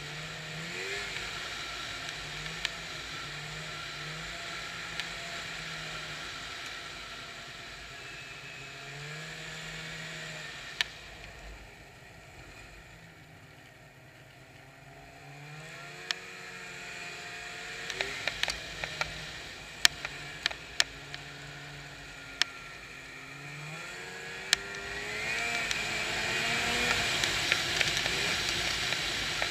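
Snowmobile engine running under way, its pitch rising and falling with the throttle; it eases off to a quieter stretch about halfway through, then builds up again near the end. Several sharp clicks and knocks come in the second half.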